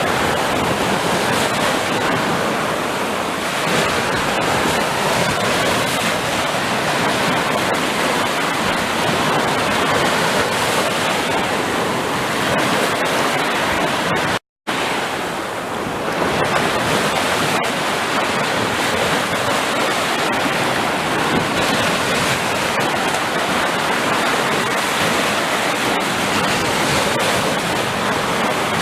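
Sea surf: a steady, dense rush of waves washing on a shore, which cuts out abruptly for a split second about halfway through.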